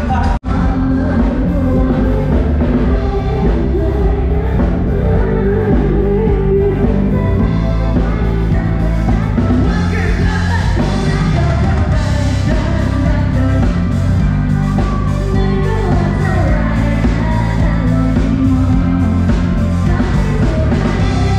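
Live rock band playing with a lead singer: drum kit, electric guitar and keyboard, amplified through stage speakers. The sound cuts out for an instant about half a second in, then the music runs on.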